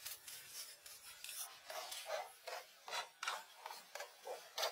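Repeated short rasping scrapes on wood, about two to three strokes a second at an uneven pace, like a blade shaving a wooden stick.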